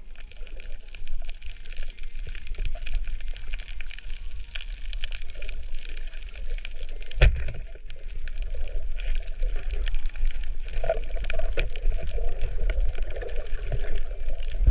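Underwater sound picked up by a camera in its housing on a reef: a steady low rumble of water moving, with a constant fine crackling over it. One sharp knock comes about seven seconds in.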